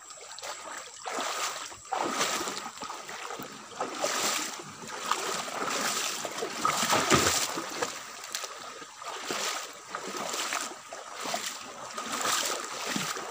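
Splashing and sloshing of a person wading through a shallow creek while towing a small boat, with irregular splashes every second or two.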